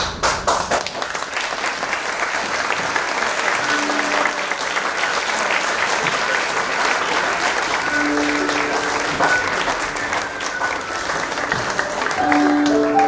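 Audience applauding, a dense clatter of clapping that starts suddenly, with music coming in under it: held notes about four seconds in, then more from about eight seconds.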